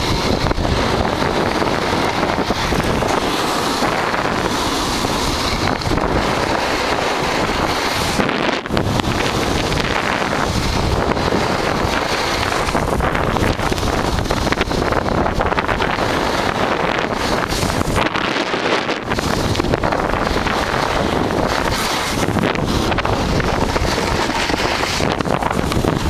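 Loud, steady wind rushing over the microphone of a camera carried by a snowboarder riding downhill, mixed with the hiss and scrape of the snowboard on the snow, with two brief lulls.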